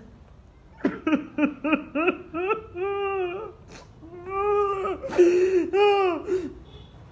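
A woman crying aloud: a run of short, quick sobs about a second in, then long drawn-out wails broken by sharp gasping breaths.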